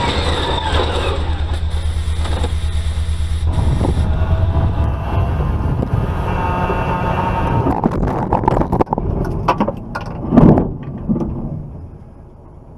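A Land Rover SUV driven at speed along a test track, heard from inside the cabin: steady, loud road and wind noise. Near the end comes a loud crash as it strikes the truck-mounted crash attenuator, and then the sound falls away.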